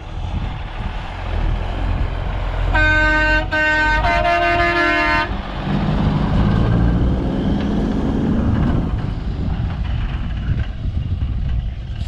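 A truck horn tooting in a few blasts, the last the longest, over the steady low rumble of a running diesel engine; afterwards the engine note rises for a few seconds.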